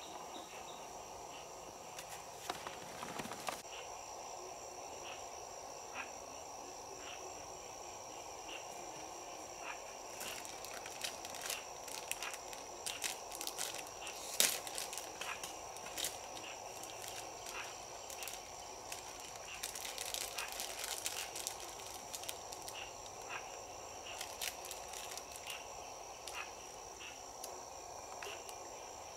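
Forest ambience: insects buzzing steadily at a high pitch, with scattered short clicks and rustles from close handling, busiest in the middle.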